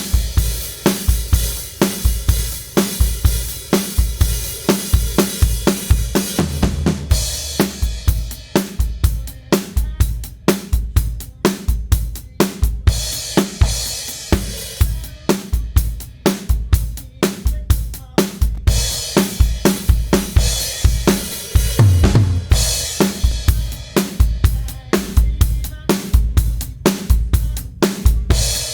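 Drum kit playing a steady groove of kick, snare and hi-hat, heard through a Behringer T1952 tube compressor/limiter. Stretches of ringing cymbal wash alternate with tighter, drier passages.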